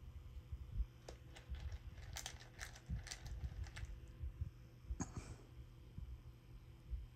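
Small plastic beads clicking and rattling as fingers pick through a compartment bead box, a quick run of light clicks in the middle, over a low rumble of hands handling.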